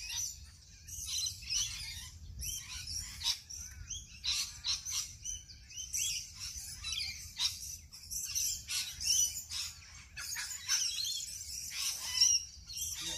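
Wild birds chirping and calling, many short high-pitched chirps overlapping without a break, over a faint low rumble of wind.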